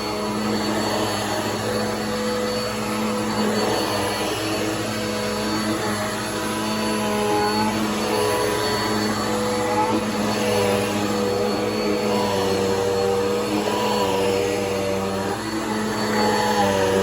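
Bissell PowerForce Helix upright vacuum cleaner running steadily, a constant motor hum with air rushing through it, its tone shifting slightly now and then.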